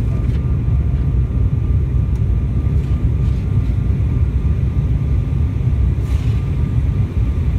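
Steady low roar inside the cabin of a Boeing 737 airliner descending to land: engine and airflow noise, with a faint steady high whine over it. There is a brief soft hiss about six seconds in.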